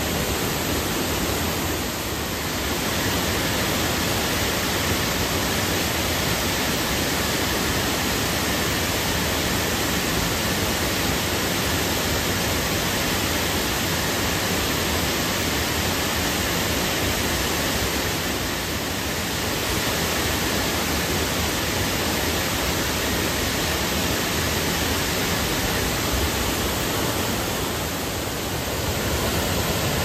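Waterfall pouring into a pool: a loud, steady rush of falling water that barely varies.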